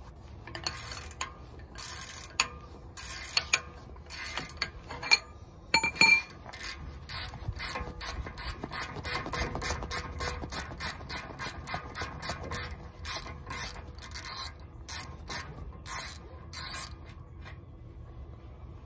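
Socket ratchet clicking in quick, even strokes as the 19 mm nut on a steering tie rod end is run off. Before that come a few louder, irregular clicks and knocks. The ratcheting stops near the end.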